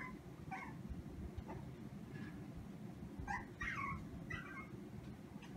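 Maltese dog whining in faint, short, high-pitched cries: a few scattered ones, then several in quick succession a little past halfway.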